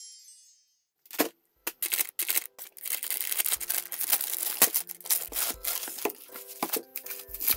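Plastic shrink wrap on an album being cut and torn open, with sharp crackles and crinkling that come in quick irregular bursts.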